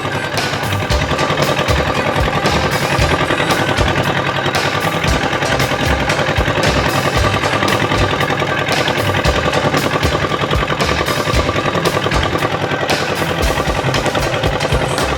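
Fishing boat's engine running steadily with a rapid thudding beat.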